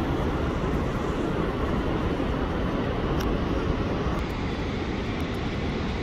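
Niagara Falls' falling water: a steady, unbroken deep rushing rumble.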